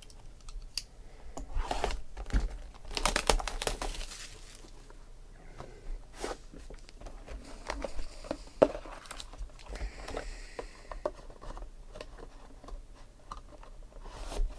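A sealed cardboard box of trading cards being opened by hand: a ripping tear about three seconds in, then cardboard sliding and scraping as the inner box comes out of its sleeve, with scattered light clicks and taps.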